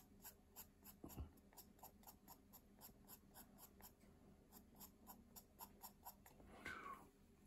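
Faint, light strokes of a charcoal pencil on paper, short scratches coming evenly at about four a second as the pencil fills in shading.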